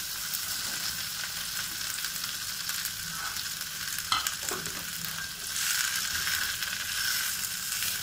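Chopped okra sizzling in hot oil in a non-stick frying pan, just after being tipped in. There is a single sharp tap about four seconds in, and the sizzling grows louder a little past halfway.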